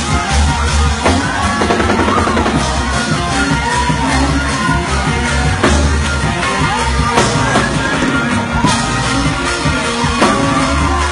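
Live gospel praise music played loud: a drum kit and organ with voices singing over them, and a heavy bass underneath.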